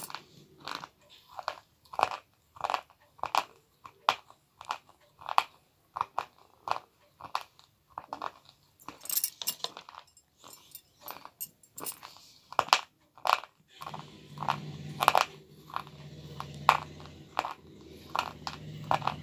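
Wet slate pencils being bitten and chewed: a run of sharp, gritty crunches, roughly one or two a second.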